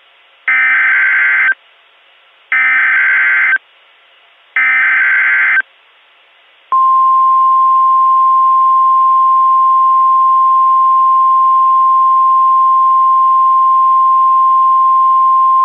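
Emergency Alert System SAME header: three identical warbling digital data bursts, each about a second long, then, after a short pause, the steady single-pitch 1050 Hz NOAA Weather Radio warning alarm tone, starting about seven seconds in. Together they signal that a weather warning broadcast follows.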